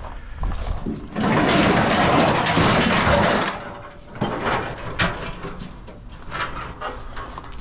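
Scrap metal being handled: a loud scraping or dragging noise for about two seconds, then a few sharp knocks and clanks.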